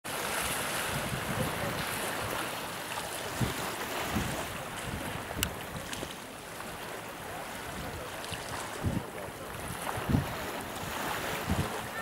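Steady wind and sea-surf noise, with gusts buffeting the microphone in several short low thumps and a single sharp click about halfway through.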